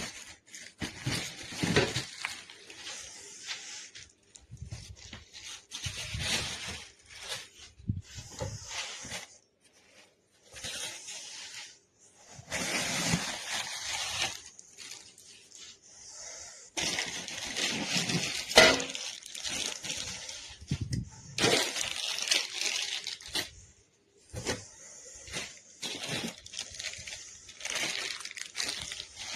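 Irregular rustling and crackling handling noises in uneven bursts, with a few sharp clicks.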